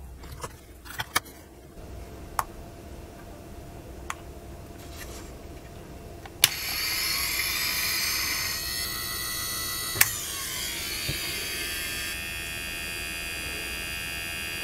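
A few clicks as 18650 cells are pressed into their holders. About six seconds in, with a click, the hard-disk spindle motor of a battery-powered DIY platter grinder starts and runs with a high, many-toned whine. Another click near ten seconds shifts the whine's pitch, and it then runs steady, working without problems.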